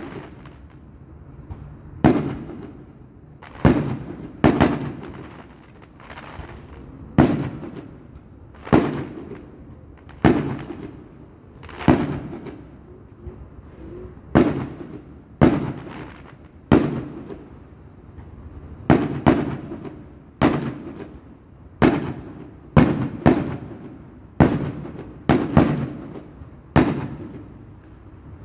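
Aerial firework shells bursting in a steady barrage: sharp bangs at uneven spacing, about one every second or so, each trailing off in a rolling echo.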